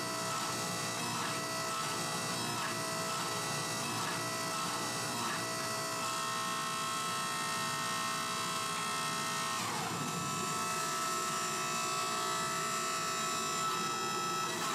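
Hydraulic forging press running with a steady motor-and-pump whine while it hot-splits and flattens a Damascus billet, with a brief dip in pitch about ten seconds in.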